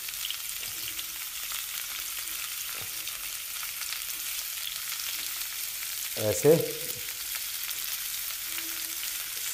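Marinated chicken skewers frying in warm oil in a nonstick pan: a steady, soft sizzle. The oil is only slightly hot, so the frying is gentle.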